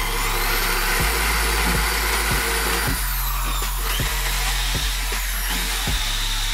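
High-speed rotary tool with a small grinding-stone bit grinding the steel of a hammer head, a steady hissing whine. Background music with a steady beat and bass line runs underneath.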